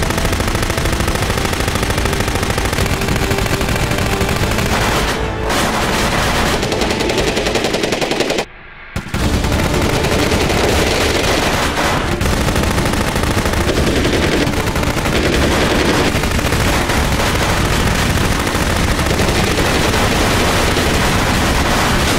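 Rapid, overlapping automatic gunfire from a group firing blank-loaded submachine guns and pistols together. It breaks off briefly about eight and a half seconds in, then carries on.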